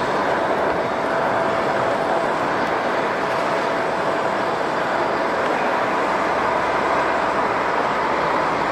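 Airliner jet engines running steadily: an even rush of noise with a thin, steady whine in it.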